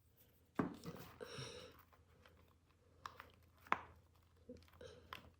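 Small handling sounds from epoxy resin pieces and their mold: a knock about half a second in, a brief crinkling rustle just after, then a few separate clicks.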